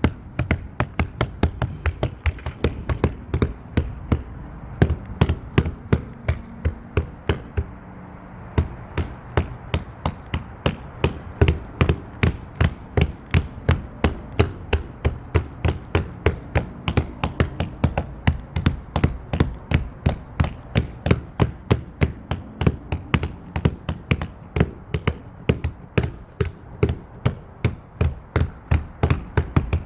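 Open palm slapping the replacement front panoramic sunroof glass of a Mercedes GLE, a steady run of sharp slaps at about three a second. The slaps press the glass down into its fresh urethane bead until it sits even with the roof.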